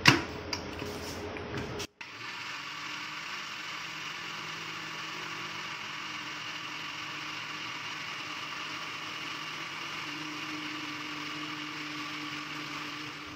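A sharp clack as the mixer grinder's jar is pressed onto its base, then the electric mixer grinder running steadily with a constant whine, grinding soaked urad dal and water into a smooth batter.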